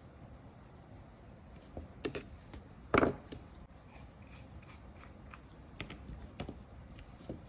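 Small nail-stamping tools being handled and set down on a work mat: a few light clicks, one sharp knock about three seconds in, then scattered soft taps.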